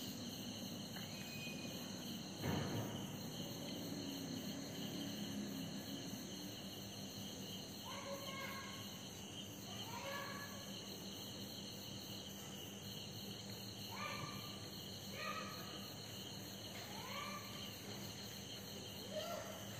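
Crickets chirring steadily. A single knock comes about two and a half seconds in, and from about eight seconds in there are several short rising calls, each lasting well under a second.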